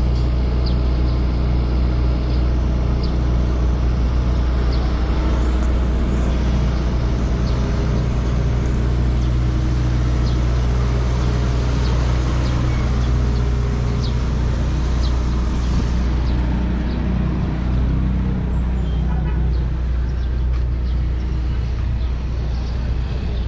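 Steady low hum of a motor vehicle engine running close by, over general street traffic noise; it eases somewhat in the last several seconds.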